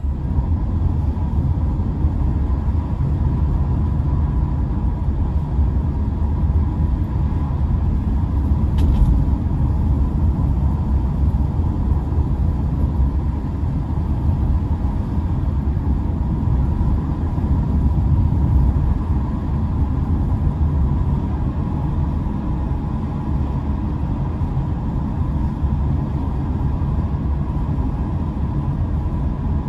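Car driving on a multi-lane road, heard from inside the cabin: a steady low rumble of road and engine noise, with a faint steady tone above it and a brief click about nine seconds in.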